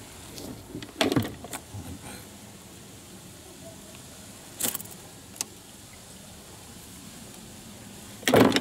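A bait catapult being handled and fired to throw loose feed from a kayak: a few separate sharp snaps and knocks, the loudest near the end.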